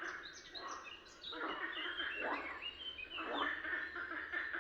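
Frogs croaking in repeated calls, roughly one a second, over a busy chorus of songbirds.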